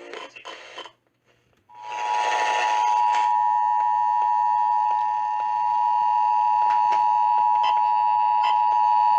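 Emergency Alert System two-tone attention signal: a loud, perfectly steady pair of tones that starts about two seconds in and holds without change. It opens behind a brief burst of buzzing data noise, and another short buzzing burst comes in the first second, before a moment of quiet.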